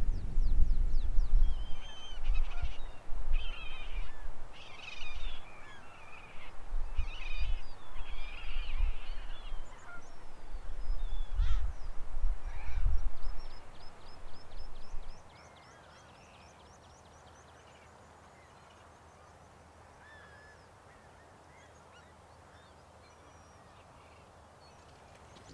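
Geese honking and calling, several at once, over a low wind rumble on the microphone. About 15 seconds in, this gives way to a faint hush with only a few scattered calls.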